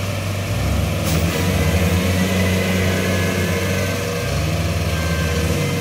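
Rice combine harvester's diesel engine running steadily while the machine sits bogged in deep mud and water, its note wavering slightly as it works to move.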